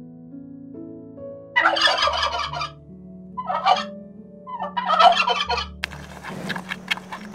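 Turkey gobbling three times, rapid rattling calls, over soft background music with slow steady notes. Near the end the gobbling stops and a crackling, rustling noise begins.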